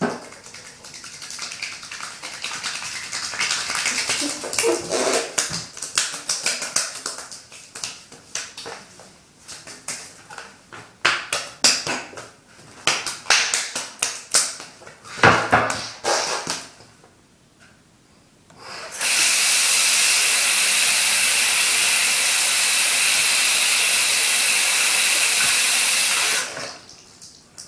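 Wet, soapy hands rubbing together in a long series of quick, irregular strokes. After a short pause, a tap runs with a steady, loud hiss for about seven seconds while the hands are rinsed, then shuts off near the end.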